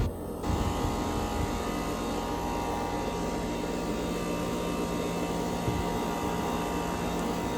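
Brand-new 2024 Goodman central air conditioner's outdoor condenser unit running steadily in cool mode, a continuous hum with several steady tones from the compressor and condenser fan.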